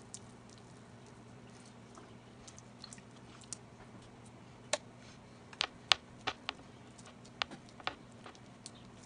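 Hot lard in a skillet spitting after a bacon-wrapped chicken roll is laid in: scattered sharp pops, a few faint ones and then a quick run of louder ones about halfway through. A steady low hum sits underneath.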